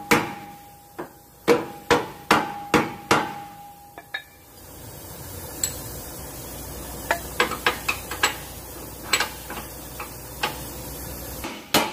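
Steel striking steel at a truck's leaf-spring hanger: about nine sharp knocks in the first four seconds, each with a metallic ring. After that comes a run of lighter metal clinks as a socket wrench is worked at the spring-bolt hole.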